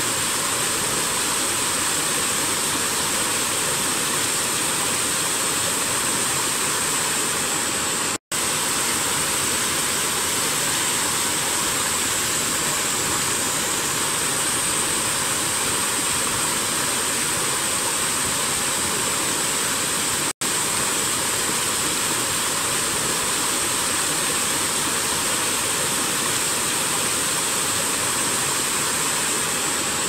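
Small waterfall pouring down a rock face: a steady, unbroken rush of falling water that cuts out for an instant twice.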